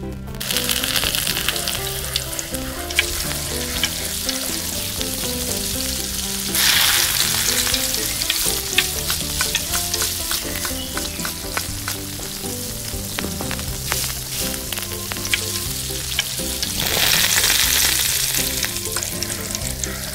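Butter sizzling and frying in a miniature steel kadai. A small metal spoon stirs chopped vegetables in it, clicking and scraping against the pan. The sizzle swells three times: near the start, about seven seconds in and near the end.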